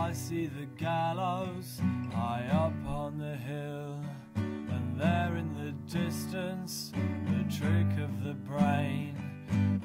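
Folk song on a strummed steel-string acoustic guitar, with a man singing close to the microphone, his held notes wavering with vibrato.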